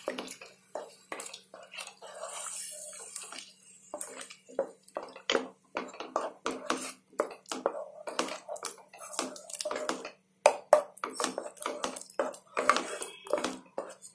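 A wooden spatula stirring and scraping a thick, wet masala gravy around a metal pan: a run of quick, irregular knocks and scrapes, over a faint steady hum.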